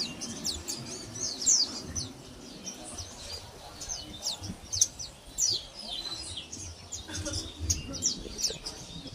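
Pleci (white-eye) chirping and twittering, a quick run of short, high, sharply falling notes that goes on without a break.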